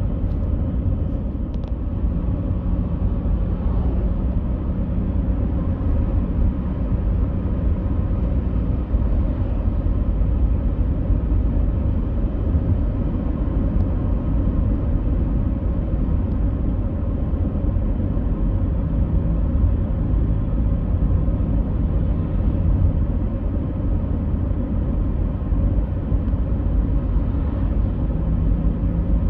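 Steady low rumble of a running vehicle, with faint humming tones over it.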